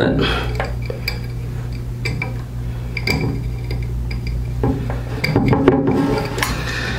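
Small metal clicks and clinks as wires and ring terminals are handled and pushed under a screw inside a cast metal conduit housing, scattered irregular ticks over a steady low hum.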